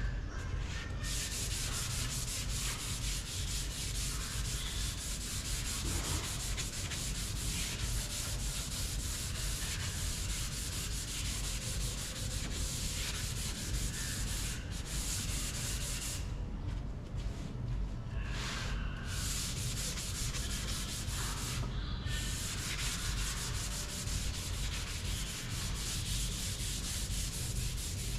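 Sanding of Bondo body filler on a car body panel: a continuous abrasive scratching hiss, broken by a few brief pauses around the middle.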